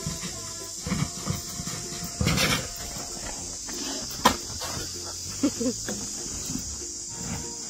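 Baby Asian elephant playing with a ball in a sandy pen: a few thumps and scuffs, the loudest a sharp knock about four seconds in.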